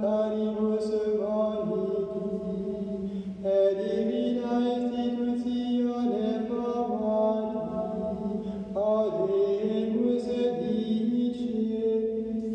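Men's voices singing plainchant, with long held notes that step and slide from pitch to pitch.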